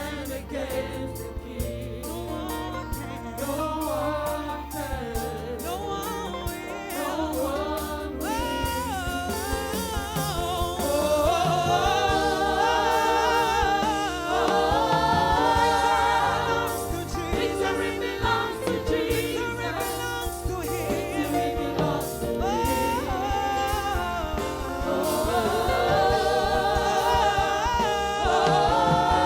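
Gospel worship music: several voices singing with vibrato over instrumental backing with a steady beat. It gets louder about a third of the way in.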